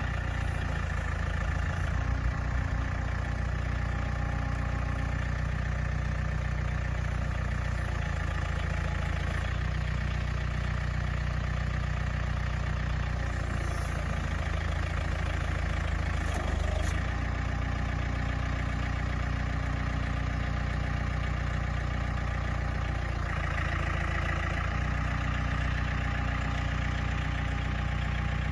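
Farm tractor engine running steadily while the tractor's grapple maneuvers logs, its note shifting a few times as the load changes.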